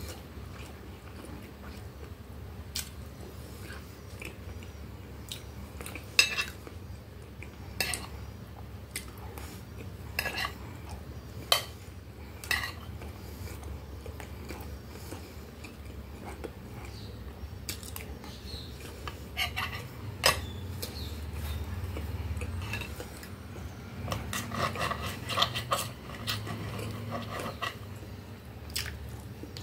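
Metal fork and knife clinking and scraping on a glass plate, a dozen or so sharp clinks spread through, with chewing close to the microphone over a low steady room hum.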